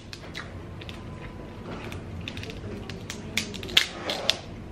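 Cooked Dungeness crab leg shell cracking as it is broken apart by hand. A run of small clicks, with a few sharper snaps in the last second and a half.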